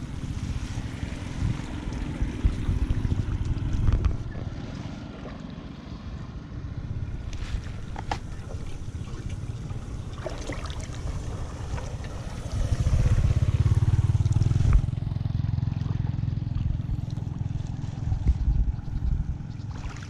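Floodwater rushing and gurgling through a street culvert drain, with wind buffeting the microphone and a few sharp knocks. A louder low rumble swells for about two seconds past the middle.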